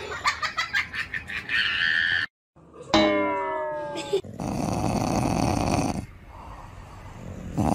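A dog groaning and grumbling. It opens with a long groan that slides down in pitch, about three seconds in, then goes on in a rough, growly grumble that dips and swells again near the end. Before it, music and a splash of water cut off abruptly.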